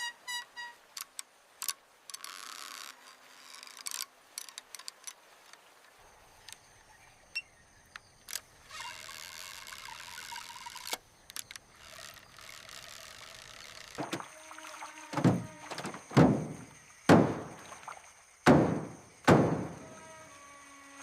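Scattered clicks and knocks and two short stretches of hiss, then five heavy thunks about a second apart, each sliding down in pitch as it fades.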